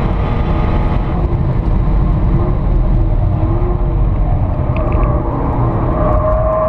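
Jaguar F-Type's engine and road noise heard from inside the cabin while lapping a race track, running hard at fairly steady revs.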